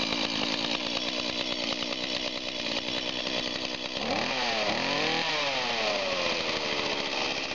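A 2006 STIHL chainsaw's two-stroke engine running cold, just after starting. About four seconds in it is revved once; the pitch rises and then falls slowly back to idle.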